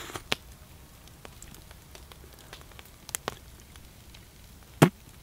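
A person eating roasted deer bone marrow straight from a cracked bone and scraping it out with a wooden stick: a few scattered soft clicks and mouth smacks over a quiet hush, the sharpest near the end.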